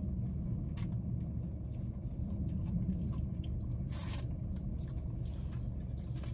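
Close mouth sounds of eating fried chicken: wet chewing, finger-sucking and lip smacks, with a louder bite about four seconds in. A steady low hum runs underneath inside the car.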